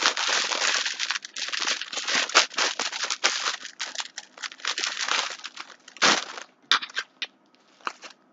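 Packaging crinkling and rustling as it is handled for unboxing, dense for about six seconds, then a few scattered crackles.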